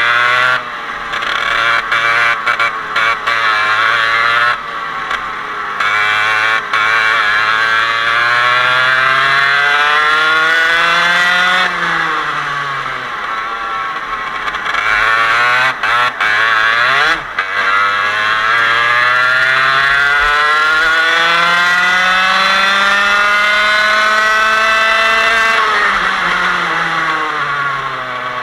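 125cc Parilla two-stroke kart engine at racing speed, its pitch climbing steadily as it accelerates and then falling sharply as it comes off the throttle, several times over. The longest climb runs for about eight seconds in the second half.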